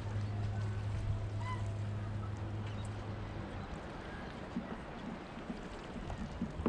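A boat engine running with a steady low hum over a wash of wind and water noise. The hum fades out a little past halfway.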